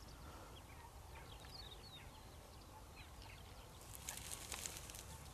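Faint, scattered short chirps of small birds in an open field, then from about four seconds a dry rustling and crackling that grows a little louder.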